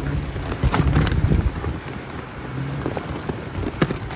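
Off-road vehicle engines running at low speed, with wind buffeting the microphone and scattered knocks from tyres rolling over loose river rock.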